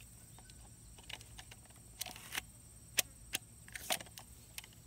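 Scattered light clicks and knocks from a Novritsch SSG24 spring airsoft sniper rifle being handled and aimed, with one sharper click about three seconds in and a short cluster near four seconds.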